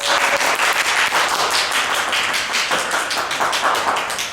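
Audience applauding: a steady run of many hand claps.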